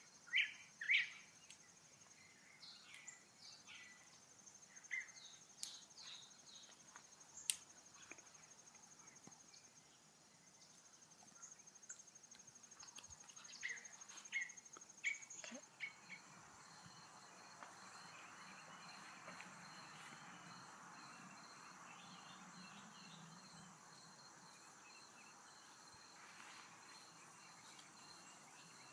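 Insects trilling steadily in a high, thin drone, with short bird chirps scattered through the first half. A faint hiss joins them from about halfway.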